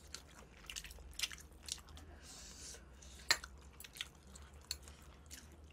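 A person biting and chewing seasoned (yangnyeom) fried chicken close to the microphone: faint, irregular wet clicks and smacks of the mouth.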